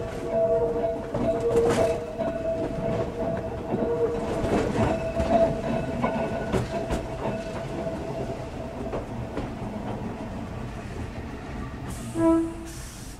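Ueda Kotsu Moha 5250-series round-window electric railcar running, heard through the car window: wheels clicking over rail joints under a steady running noise with a whine early on. Near the end the sound eases, then comes a short loud tone and a hiss.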